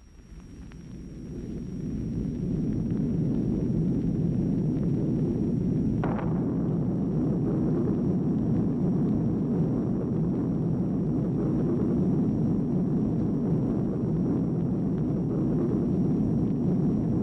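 Nuclear explosion sound effect: a long, steady low rumble that swells up over the first couple of seconds, with a brief sharper burst about six seconds in.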